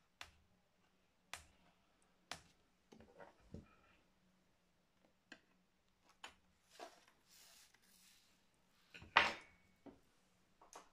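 Scattered small clicks and light knocks of hands and tools handling a plastic laptop case during reassembly, with about a dozen sharp ticks and one louder knock about nine seconds in.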